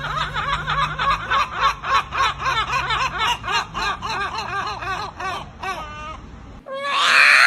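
A bird calling in a rapid run of rising-and-falling notes, about five a second, that sounds like laughter and stops about six and a half seconds in. A short, louder, harsh call follows near the end.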